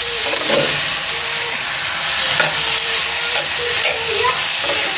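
Chicken pieces and onion sizzling in hot oil in a stainless steel frying pan, with a metal spoon scraping and knocking against the pan as they are stirred. The sizzle is a steady hiss.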